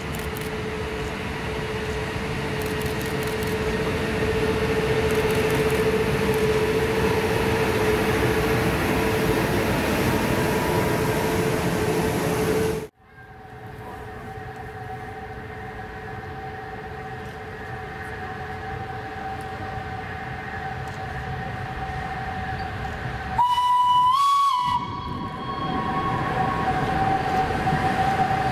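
Vintage Swiss electric locomotive running with a steady hum and rumble. After an abrupt break about halfway through, a short horn blast sounds for about a second, its pitch stepping up slightly just before it stops.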